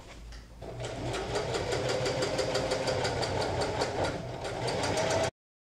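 Domestic electric sewing machine stitching a straight line through thick denim, a steady run of rapid, even needle strokes that starts about a second in. It is sewing understitching through several layers, a load the machine is said to struggle with, and the sound cuts off suddenly near the end.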